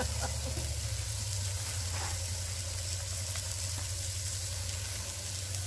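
Burger patties and frozen fries sizzling on a hot tabletop flat-top griddle: a steady frying hiss over a low, steady hum.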